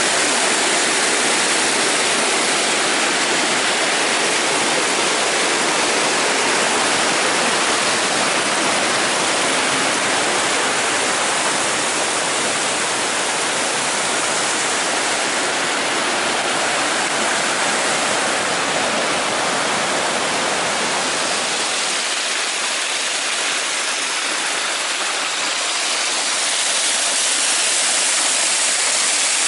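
Waterfall rushing steadily, the loud, even roar of water falling in a ravine.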